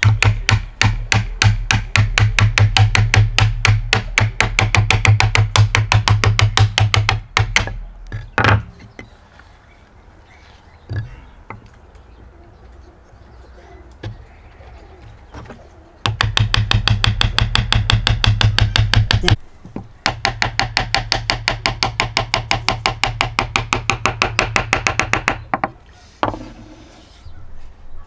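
Steel hammer tapping rapidly on a hardwood board, about seven light blows a second, driving a hand-cut interlocking timber joint closed. The taps come in three runs, with a pause of several seconds after the first.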